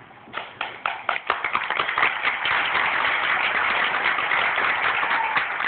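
Audience applauding: a few scattered claps that build within about two seconds into full applause, thinning out near the end.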